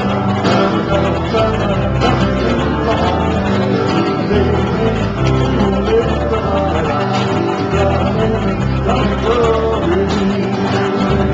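Live acoustic band playing: several strummed acoustic guitars over a steady bass line, with men singing into microphones.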